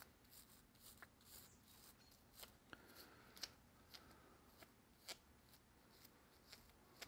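Faint scratchy scrubbing of a toothbrush's bristles on the side plate of an Abu Garcia low-profile baitcasting reel, working out old grease and grit, with scattered light clicks of the plastic brush against the metal.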